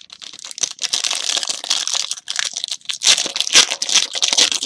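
A trading-card pack wrapper being torn open and crinkled by hand: a dense, irregular crackling that swells louder about a second in and again about three seconds in.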